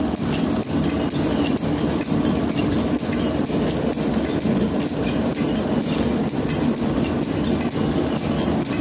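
Metalworking planer running under power, taking a steady cut in a steel flame-cut plate and peeling off chips: a continuous mechanical clatter with many small clicks.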